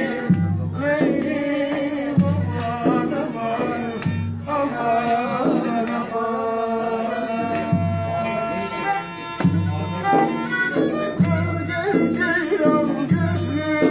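Live folk music: a bowed string instrument playing a wavering melody with men singing, over a low beat about every two seconds.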